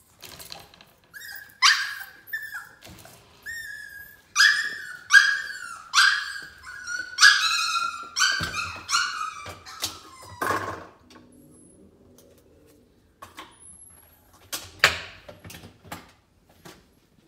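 Parson Russell Terrier puppy whining to be let out of its pen: a long run of short, high-pitched cries, each falling in pitch, for about the first ten seconds, then a few more near the end.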